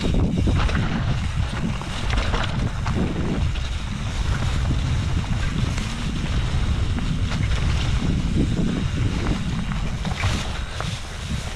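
Wind buffeting the microphone: a loud, uneven low rumble that gusts up and down, with scattered crackles.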